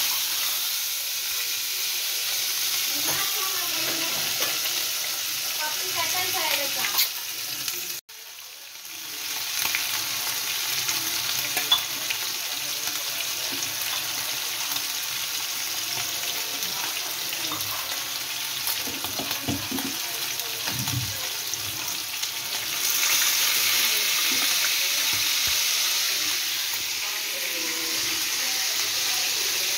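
Marinated chicken breast pieces shallow-frying in hot oil in a frying pan: a steady sizzle. It breaks off for a moment about eight seconds in and grows louder about three-quarters of the way through.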